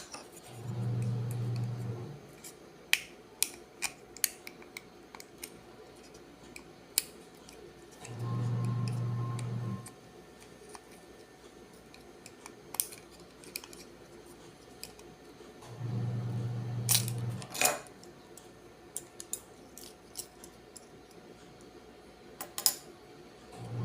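Small sharp clicks and taps of a plastic wall switch being pried and taken apart. Three times, a low steady buzzing whir sounds for about a second and a half.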